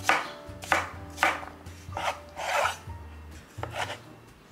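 Chef's knife dicing cucumber and tomato on a wooden cutting board: a series of sharp cuts, roughly one every half second, each knocking through onto the board.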